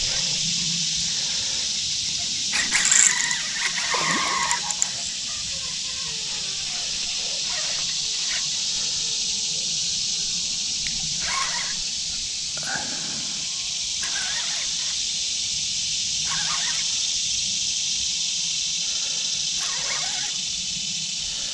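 Steady, high-pitched drone of a summer insect chorus. A brief cluster of louder sudden noises breaks in about three to four seconds in.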